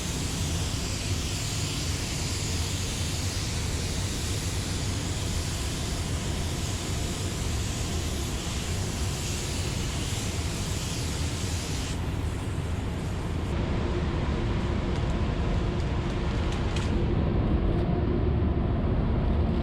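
Air spray gun hissing steadily as clear coat is sprayed, stopping about twelve seconds in. Under it runs a steady low machine rumble that grows a little louder near the end.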